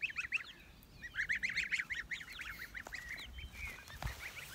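A flock of goslings peeping: many quick, high, rising peeps overlapping, with a short lull about half a second in.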